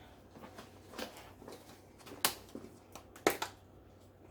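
Light clicks and knocks of kitchen items being handled: three sharper knocks about a second apart, with fainter ticks between them.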